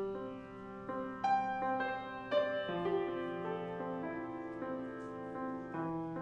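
Grand piano playing a slow, quiet solo piece, a new note or chord struck about every half second to second and each left to ring on under the next.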